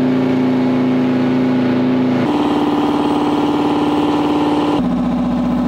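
Diesel engine of an Oshkosh HET heavy wrecker truck running steadily as the truck drives up a snowy track. It is a loud, even drone whose pitch shifts abruptly about two seconds in and again near the end.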